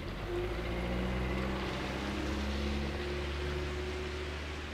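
Heavy diesel engine running at low, steady revs, growing louder about half a second in and easing off slightly toward the end.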